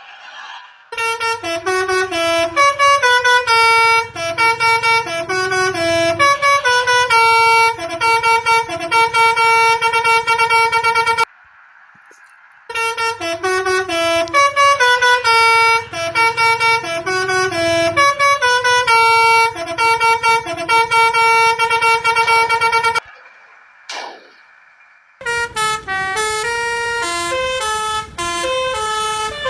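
Telolet (basuri) multi-tone air horn on a truck playing a tune as a fast run of short notes. It plays three runs of about ten seconds each, with brief breaks between them.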